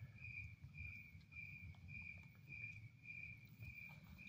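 A cricket chirping faintly and steadily in the dark, a high even chirp repeating about two and a half times a second, over a low rumble of handling noise.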